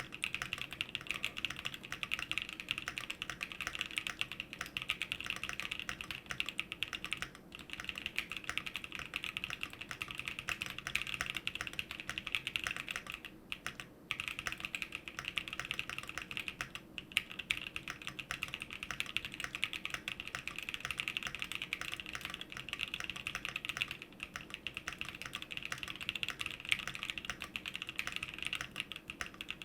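Fox Labs Leaf 65 custom mechanical keyboard with Gazzew Boba LT tactile switches on an aluminum plate, fully foamed with a PE foam mod and Durock V2 stabilizers, being typed on quickly. A dense, continuous run of key presses, with short pauses about 7 and 14 seconds in.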